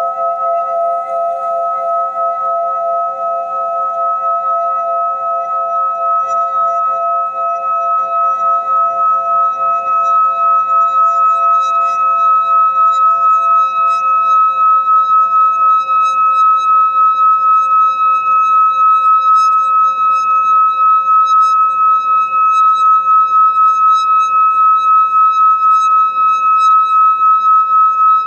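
A handheld metal singing bowl sung by circling a mallet around its rim: one steady ringing tone with a gentle wobble. It grows a little louder over the first ten seconds, and its lower tones fade about halfway through while the high tone holds on.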